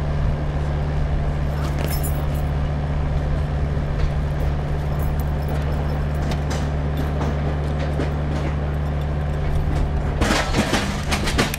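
Propane-fuelled Yale forklift engine running with a steady low drone. About ten seconds in, a burst of clattering and rattling rises over it as the forklift moves off.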